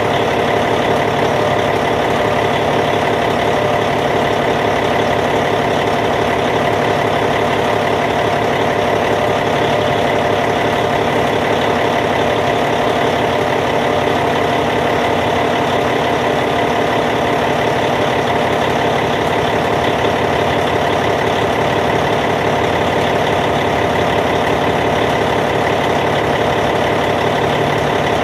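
Caterpillar C15 inline-six diesel in a Cat D8T bulldozer idling steadily and evenly, with no change in speed.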